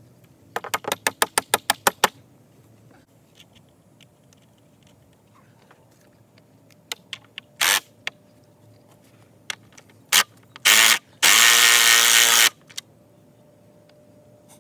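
About ten quick hammer blows in under two seconds near the start, then a cordless drill running in a few short bursts and once for over a second near the end, during work putting all-thread rods through a wooden bulkhead wall.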